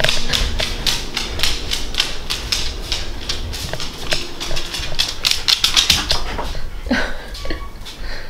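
A dog's claws clicking rapidly on a hardwood floor as it trots away, over the rustle and bumps of a handheld camera following it. The clicks thin out near the end.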